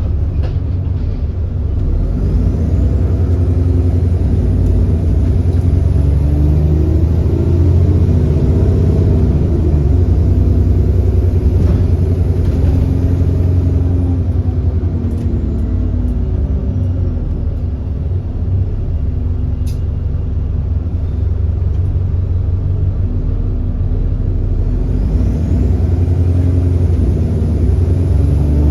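The 6.7-litre Cummins ISB diesel of an Alexander Dennis Enviro400 bus under way, with a heavy low rumble. The engine note climbs, falls back about ten seconds in, and climbs again near the end. The engine has an exhaust leak.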